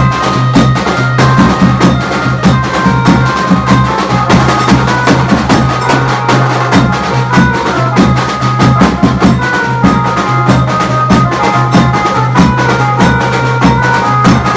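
Loud music with a fast, dense drum beat over a steady low drone, with a held melody line on top.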